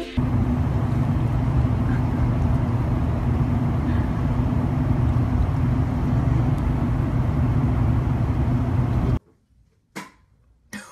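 Steady low engine rumble of a running vehicle, loud and unchanging, with a constant hum. It cuts off suddenly about nine seconds in, followed by a couple of faint knocks.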